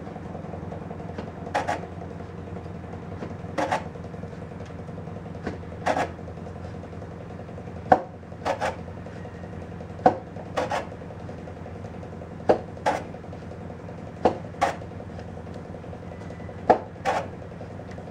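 Sandpaper strip pulled out of a guitar's set-neck joint, sanding the neck heel to fit the body: short rasping swipes about every two seconds, some in quick pairs. Under them is a steady low hum from a pool cleaner, which the builder calls thumping.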